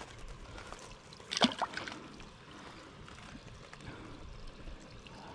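A small perch dropped back into the lake with one short splash about a second and a half in; otherwise faint water lapping against the rocks.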